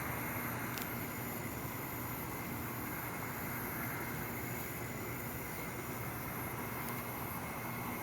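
Steady outdoor background rumble and hiss, with a faint hum and no distinct event apart from one small click about a second in.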